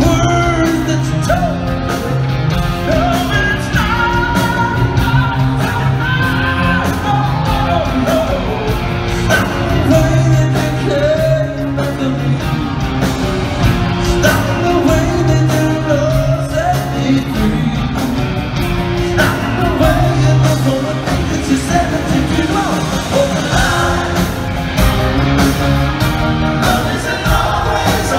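Live rock band playing a song with a lead singer: electric guitars, bass and drums, amplified through a large arena's sound system and heard with the hall's echo.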